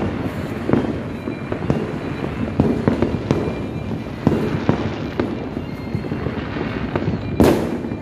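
Fireworks going off in a continuous barrage: sharp bangs and pops several times a second, with one louder blast that rings on briefly near the end.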